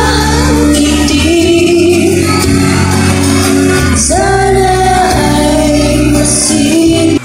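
A singer performing a song with band accompaniment through a PA system, with long held notes over a steady bass.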